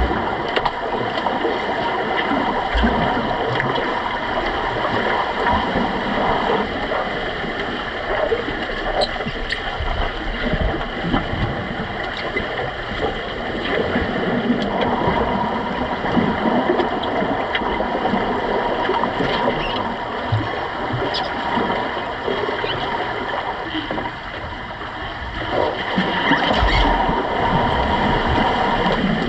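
Pool water heard underwater during an underwater rugby game: a steady muffled rush and bubbling with a faint steady hum, and scattered clicks and knocks from the players. It grows louder near the end, as players dive in from the surface.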